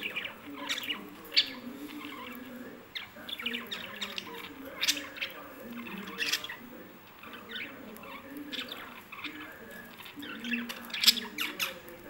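Caged budgerigars chirping and chattering, with many short, sharp squawks scattered throughout and a loud one about eleven seconds in.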